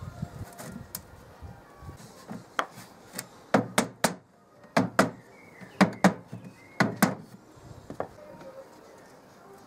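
A mallet tapping a chest of drawers' carcass, seating a thin veneered plywood panel into its rebate joints: about a dozen sharp wooden knocks, several in quick pairs, from about two and a half seconds in until about eight seconds in.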